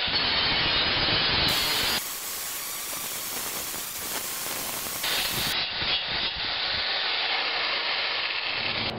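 Handheld angle grinder running and grinding sheet metal: a steady rushing grind with no clear whine, stepping quieter about two seconds in and louder again about five seconds in.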